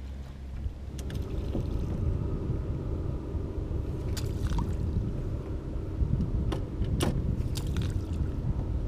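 Low steady rumble of a small fishing boat on the water, with a few sharp knocks, about a second in and again around four and seven seconds.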